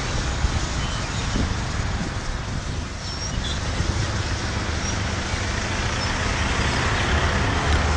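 Steady road traffic noise, with a few faint, short high chirps from swallows roosting on the power lines.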